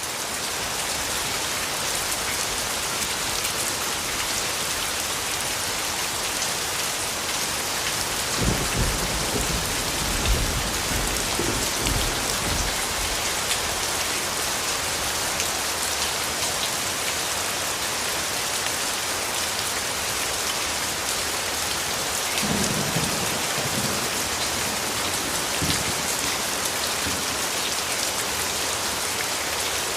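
Steady, heavy rain falling on a surface, with low rolls of thunder about eight seconds in and again a little past twenty seconds.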